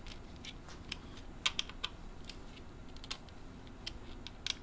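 Irregular small clicks and ticks of a tiny screwdriver turning screws in a clear acrylic model frame, with light plastic taps as the piece is handled. A few sharper clicks come about a second and a half in, around three seconds, and near the end.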